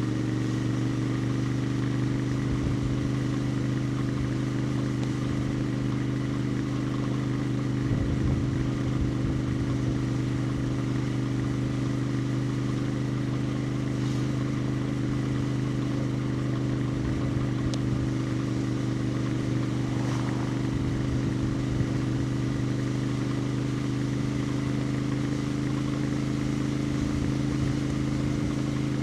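Royal Enfield Interceptor 650's 648 cc parallel-twin engine and exhaust running at steady, unchanging revs while cruising, heard from the rider's position. A few brief low rumbles come through about 8 and 20 seconds in.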